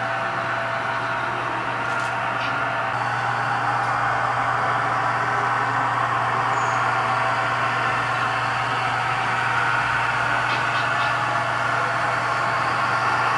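HO scale model diesel locomotives running on the layout, their sound units giving a steady diesel engine drone over a low hum, growing a little louder towards the end.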